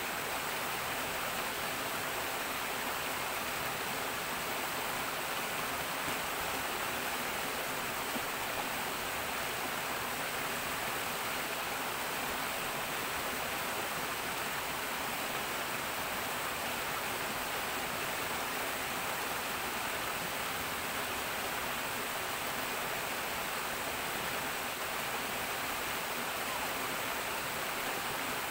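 Steady rush of water pouring into a stone-edged bathing pool, churning white where it flows in.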